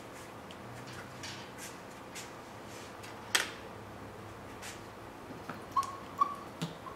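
Faint rubbing and taps of hands on latex sheeting, with one sharp click a little past the middle. Near the end, a wooden seam roller run over a freshly glued latex reinforcing patch gives a few short squeaks.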